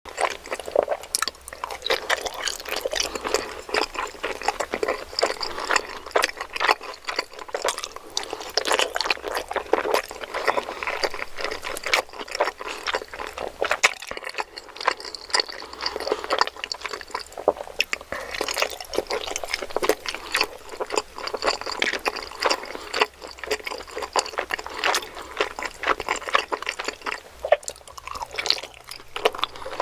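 Close-miked eating sounds: wet chewing and mouth noises with a dense, continuous stream of small clicks and smacks.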